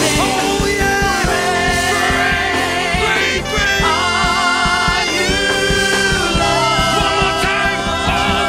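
Live church worship band playing with several singers holding long, wavering notes over a steady drum beat.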